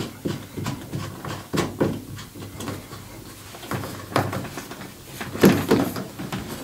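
Handling noise of a washing machine's water supply hose being screwed on hand tight at the inlet and then moved against the machine's back panel: irregular clicks, rubs and knocks, the loudest knock about five and a half seconds in.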